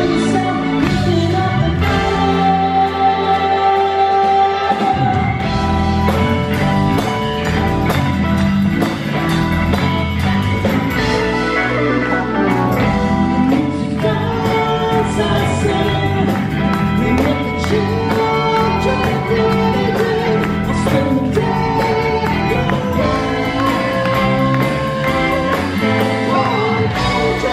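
Live rock band: a lead vocalist singing over keyboards, electric bass and drums, recorded from within the concert audience.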